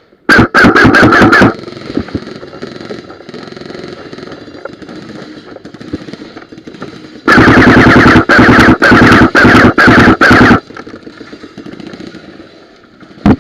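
Airsoft gun firing on full auto right at the microphone, loud enough to clip: a burst of about a second near the start, then several bursts in quick succession over about three seconds later on.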